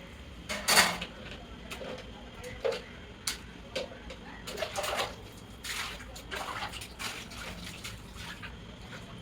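Water splashing and sloshing in irregular bursts as plastic table-fan parts are washed by hand, with occasional clatters of handling; the loudest splash comes about a second in.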